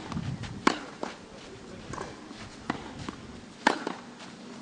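Tennis balls being hit with rackets and bouncing on a clay court in a practice rally: a string of sharp pops about every half to one second, the loudest shortly after the start and again about three and a half seconds in.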